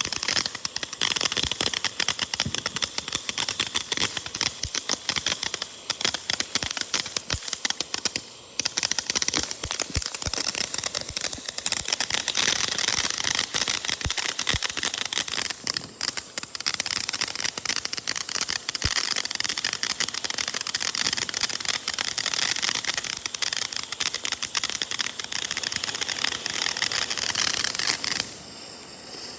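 Consumer firework going off: dense, rapid crackling with occasional louder pops, running for nearly half a minute with a few brief lulls and stopping near the end.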